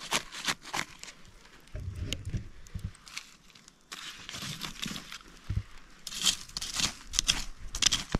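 Green leaves of a wrapped food parcel rustling and crinkling as it is pushed into hot embers, with a few dull knocks and a run of sharp crackles near the end.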